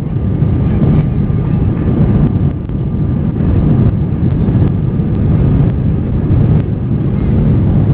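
Steady loud rumble of an Airbus A320's jet engines and rushing air, heard inside the cabin at a window seat over the wing during the climb after takeoff, with a faint steady whine above it.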